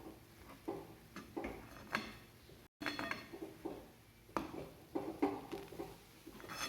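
A spoon knocking and scraping against a pan and plate while soft mango sheera is served out, a run of short irregular taps and clinks with a brief break near the middle.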